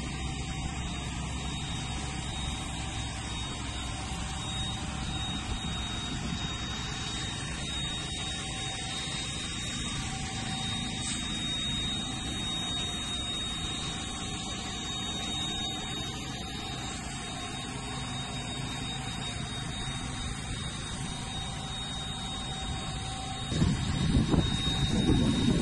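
Steady drone of idling engines with a thin, constant high whine. Near the end a louder, uneven low rumbling breaks in.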